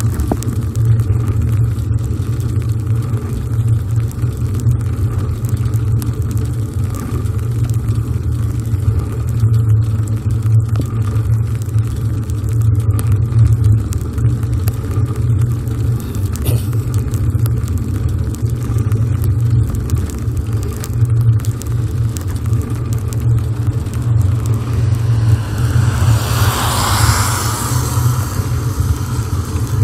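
Steady low wind rumble on the microphone of a camera carried on a moving bicycle. Near the end a car passes on the road alongside, its noise swelling briefly and then fading.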